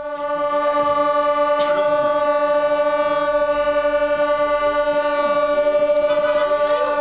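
Tibetan gyaling, a double-reed shawm, sounding one long steady note held without a break, with a slight pulse in its loudness.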